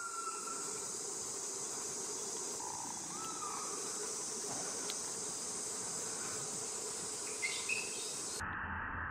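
Steady high-pitched chorus of summer insects, with a few faint short calls over it and two brief, louder high calls about three quarters of the way through. Near the end the high-pitched chorus cuts off abruptly and a lower-pitched hiss takes its place.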